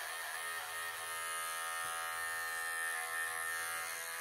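Wahl cordless pet clippers running with a steady buzz, their blade shaving out solid mats of fur from a cat's thick coat.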